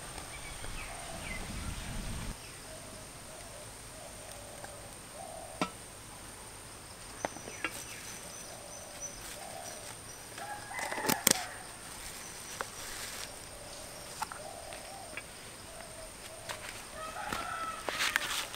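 Chickens clucking faintly in short, repeated calls. Between them come occasional sharp clicks and taps of kitchen things being handled, the loudest about eleven seconds in as a small plastic container lid is opened.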